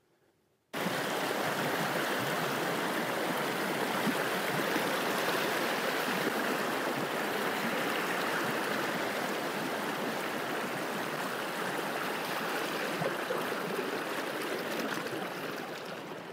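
Stream water running steadily, a dense rushing sound that starts suddenly about a second in and eases a little near the end.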